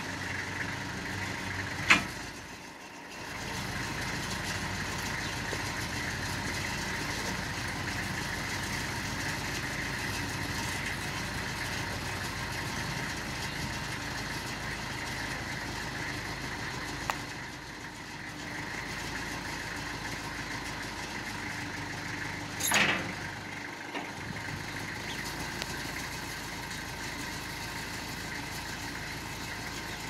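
An engine idling steadily. A single sharp knock about two seconds in is the loudest moment, and a short, louder clatter comes about three-quarters of the way through.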